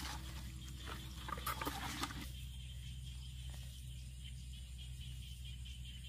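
Crabs clicking and scratching against the inside of a plastic bucket as they are dropped in and handled, for about two seconds. After that only a steady low hum remains, with a faint tick or two.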